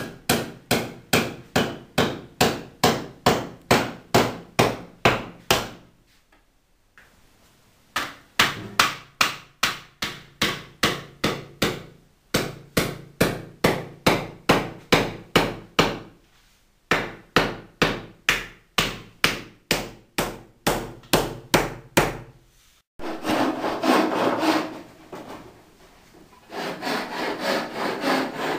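Hammer driving nails into a plywood board on a wall: steady blows, about two or three a second, in four runs with short pauses between them. Near the end the hammering gives way to a rough scraping or rasping sound in two stretches.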